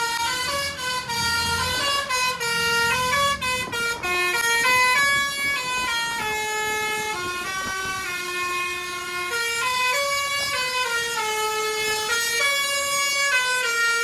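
Bus 'basuri' musical horn playing a tune: a string of loud, bright horn notes stepping up and down in pitch, each held for a fraction of a second to about a second. A low engine rumble runs under the first few seconds.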